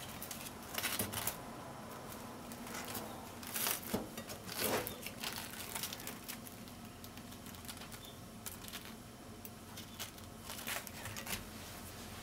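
Soft rustling and brushing of a slice of bread being handled and laid onto another slice on a plate, in several short bursts that are strongest in the first five seconds.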